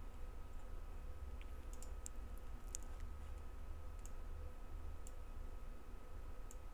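Several sharp computer mouse clicks, scattered unevenly, over a steady low electrical hum.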